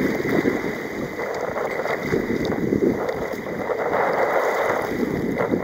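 Wind buffeting a deck-level microphone over rough, breaking sea water rushing and splashing around a sea kayak, in gusty surges.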